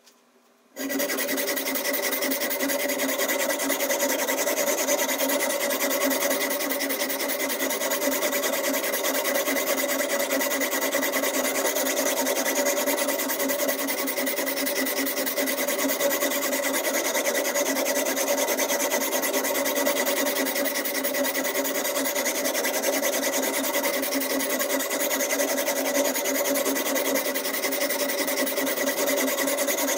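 Diamond whetstone on a Ruixin Pro RX 008 guided sharpener being stroked back and forth along a steak knife's edge: a steady, gritty scraping of steel on diamond plate. It starts about a second in, after a moment of silence.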